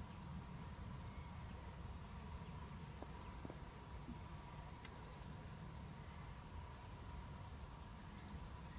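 Quiet outdoor ambience: a few faint, short bird chirps scattered through the second half, over a low steady rumble and a faint steady tone.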